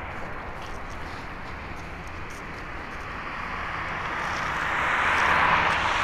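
Boeing 737-800 freighter's CFM56 jet engines just after touchdown on the landing roll-out. The roar swells over the last few seconds as reverse thrust is applied to slow the aircraft.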